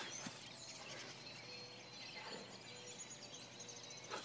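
Quiet outdoor ambience with faint bird chirps.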